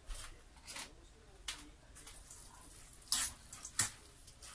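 Dressed glass-noodle salad being tossed with a utensil in a stainless steel bowl: scattered short wet squishes and scrapes, a cluster of them about three seconds in.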